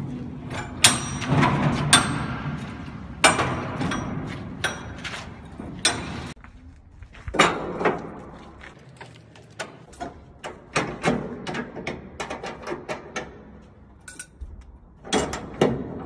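Steel shipping-container door hardware being worked: locking bars, cam handles and a steel lever bar clanking and scraping as the doors are shut and latched. Sharp metallic knocks, some ringing, come heaviest in the first few seconds, then lighter, quicker clicks follow.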